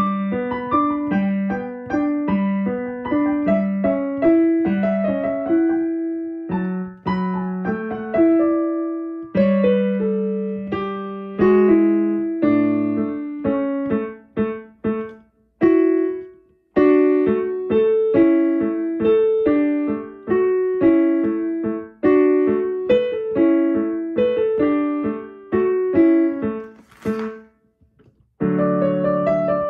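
Piano playing a sonatina in practice: a steady run of notes that breaks off several times and starts again, as slips are made. A brief sharp noise comes just before the playing resumes near the end.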